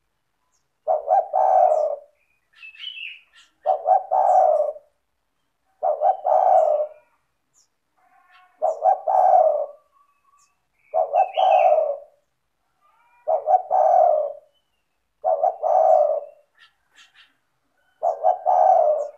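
Spotted dove (tekukur) in full, vigorous song, cooing its phrase over and over about every two seconds, each phrase a few short notes running into a longer coo. Faint high chirps of small birds come in some of the gaps.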